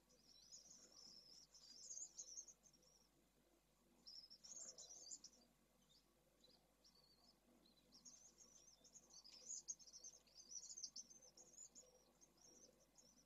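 Faint, high-pitched twittering from pale swifts at the nest, coming in bursts. One burst is at the start, a short one comes about four seconds in, and a longer run goes from about eight seconds in until near the end.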